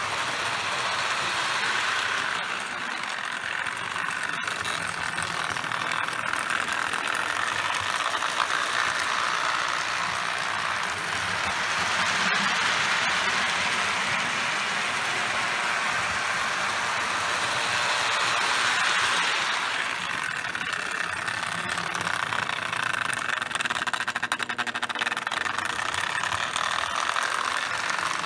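Lionel 249 toy steam locomotive pulling a short freight train around a layout on its test run after cleaning and repair: a steady whir and rattle of the electric motor and wheels on the track. It swells louder twice, about twelve and nineteen seconds in, as the train passes close by.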